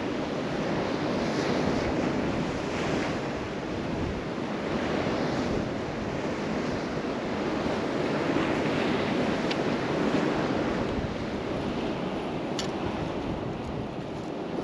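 Ocean surf washing against coastal rocks, with wind buffeting the microphone; the wash swells and eases in slow surges.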